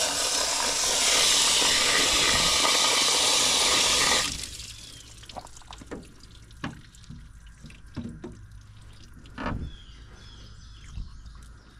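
Water from a garden hose rushing for about four seconds, then cut off abruptly, while flushing sludge from the clogged cooling passages of an L134 flathead engine block. A few light clicks and knocks follow.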